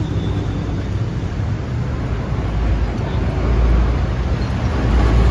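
Road traffic on a busy city street: cars and an orange city bus driving past, with a deep engine rumble that swells about three and a half seconds in and again near the end as vehicles pass close.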